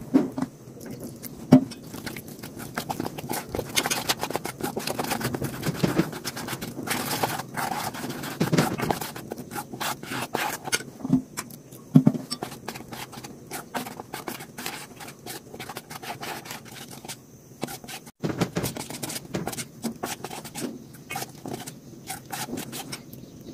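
Metal spoon scraping and clinking against a stainless steel bowl while stirring a flour batter, in irregular strokes.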